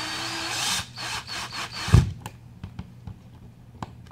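Power drill/driver running in short bursts, driving the outlet's mounting screws into the box, with a whine in the first long run; a sharp knock about two seconds in and a few clicks follow.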